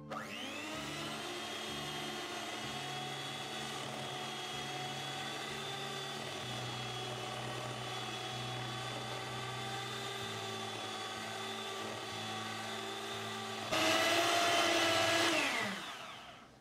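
Electric hand mixer creaming butter and sugar in a glass bowl. The motor spins up at the start and runs with a steady whine, gets louder near the end, then winds down with a falling pitch as it is switched off.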